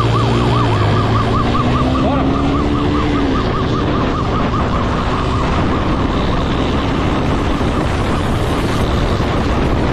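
Police siren in a fast warbling yelp over heavy wind and road noise, with an engine rising in pitch during the first few seconds; the siren grows fainter in the second half.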